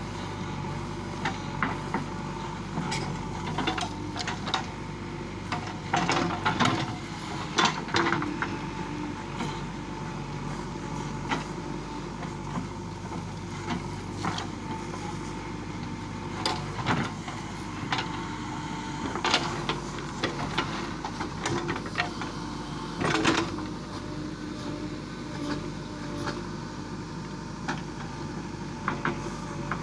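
JCB 3DX backhoe loader's diesel engine running steadily under load while the backhoe digs, with irregular clanks and knocks as the bucket and boom linkage work through the soil, loudest a few times in clusters.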